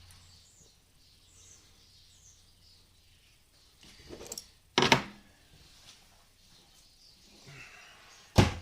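Quiet workbench handling with two sharp knocks, one about five seconds in and one near the end, and a few lighter clicks before the first: carburetor parts being handled and set down, on their way to the ultrasonic cleaner.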